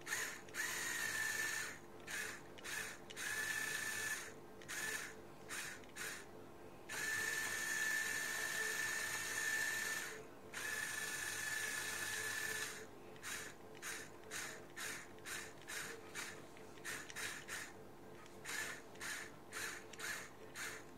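Small Lego Technic electric motor whining through plastic gears as it turns the phone holder, running in stretches of one to three seconds, then stopping and starting in quick short bursts in the last third.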